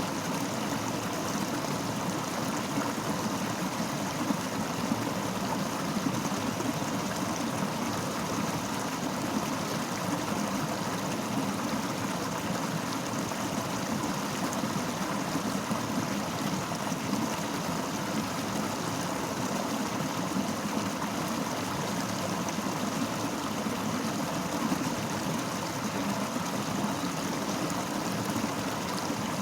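Fast-flowing river rushing over rocks: a steady, even rush of water without a break.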